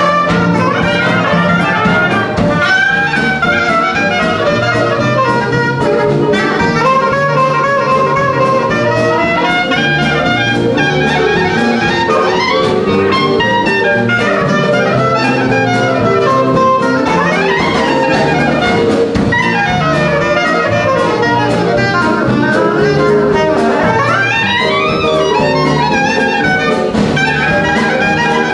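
Live traditional jazz band playing: a reed instrument solos in quick runs up and down over a steady bass line, drums, guitar and keyboard.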